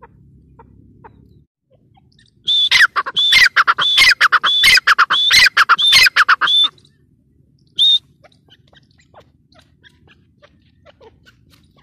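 Grey francolin calling: a loud run of quick repeated notes, about three a second, starting a couple of seconds in and lasting about four seconds, with one more note about a second after it.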